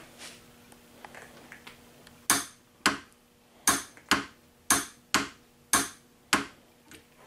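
A ratcheting wrench clicking as a bolt is tightened: about eight sharp single clicks, roughly two a second, starting a couple of seconds in, over a faint steady hum.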